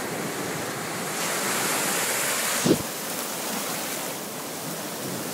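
Shallow surf washing over the sand. A rush of water swells about a second in and breaks off abruptly about halfway through, with a brief sharp sound as it stops.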